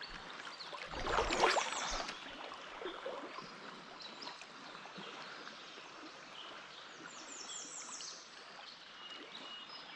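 Shallow river current flowing steadily over a rocky bed, with a brief louder rush of noise about a second in and a short run of high chirps near the end.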